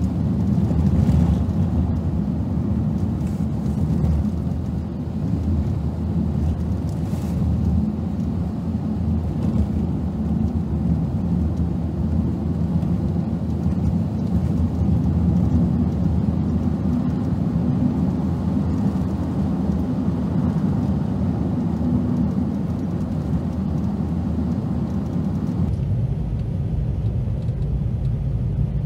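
Car driving on a snow-covered road, picked up by a dashcam inside the cabin: a steady low rumble of engine and tyres. Near the end, the deepest part of the rumble drops away and the tone shifts.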